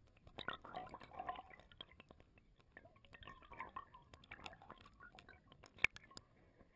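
Faint water splashing and dripping, with scattered small clicks and one sharper click about six seconds in.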